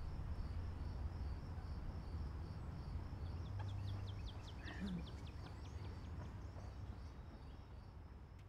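Outdoor ambience: birds chirping, with a rapid run of quick descending chirps a few seconds in, over a steady low rumble.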